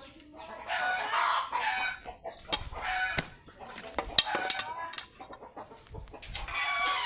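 Chickens clucking and calling repeatedly, with a few short knocks among the calls.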